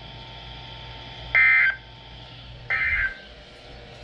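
Emergency Alert System SAME data bursts: two short, harsh digital warbles about a second and a half apart, over a faint hiss from the radio feed. Their shortness after a finished spoken alert fits the end-of-message code that closes an EAS broadcast.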